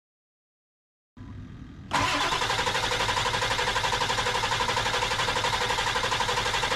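Ford F250's 7.3 Powerstroke V8 turbodiesel turning over on the starter motor, cranking without firing, with even rhythmic pulses. Starts a little under two seconds in, after a short silence. It cannot start because it is not building enough high-pressure oil, which the owner blames on a large leak in the oiling system.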